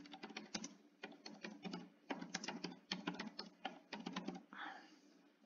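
Computer keyboard typing: a quick, irregular run of keystroke clicks that stops about four and a half seconds in.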